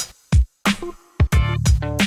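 Background music with a drum beat: deep kick-drum thumps and short pitched chords.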